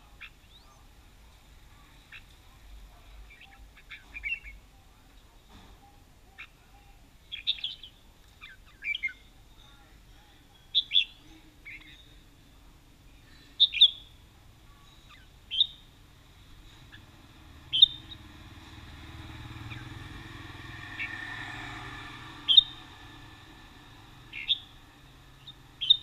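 Caged red-whiskered bulbuls calling: short, sharp chirps that drop in pitch, one every second or two. Partway through, a vehicle passes with a low rumble that swells and fades under the calls.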